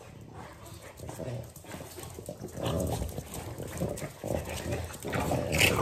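Two French bulldogs play-fighting over a toy, making dog vocal noises and scuffling, louder near the end.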